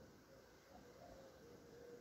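Near silence, with a faint wavering tone.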